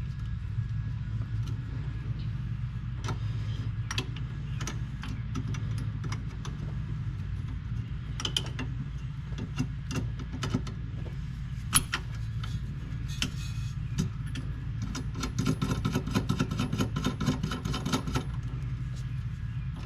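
Metal hand tools clicking and clinking on a transfer-case shift cable's mounting hardware as it is fitted and adjusted, with a quick run of rapid clicks near the end like a ratchet wrench working a nut, over a steady low hum.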